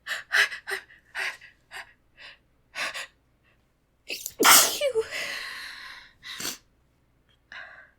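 A woman's short, catching gasps as a sneeze builds, then one loud sneeze about four and a half seconds in that trails off in a breathy exhale over the next second and a half, followed by a short breath.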